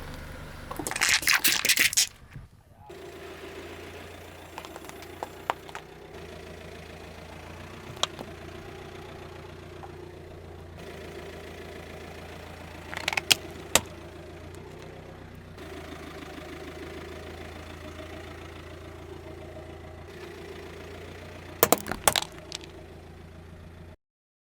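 Car engine running slowly, with a loud rush of noise at the start, then a steady low hum broken by sharp cracks several times as objects are crushed under a tyre.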